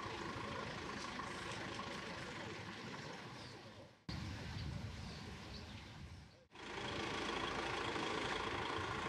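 A steady background hum of a running engine, broken by two abrupt cuts about four and six and a half seconds in.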